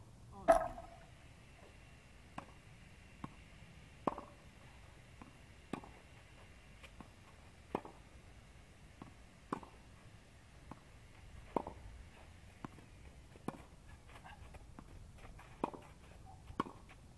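Tennis rally on a clay court: a racket strikes the ball sharply about every one and a half to two seconds, the first hit the loudest.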